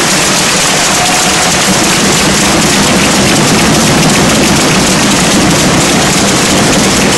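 Arena crowd applauding, a steady, dense clapping noise with crowd voices under it.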